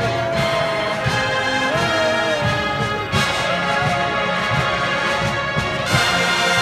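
Marching band playing: brass over a steady drum beat, the full band coming in louder about three seconds in and again near the end.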